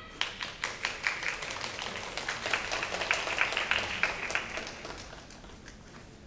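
Audience clapping: a brief round of applause that builds quickly, then thins and dies away about five seconds in.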